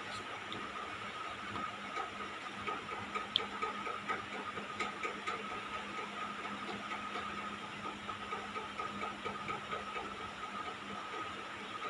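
Steady electrical hiss with a constant high whine and a low hum, with a few faint clicks in the middle, from a bench setup with a car stereo head unit powering up.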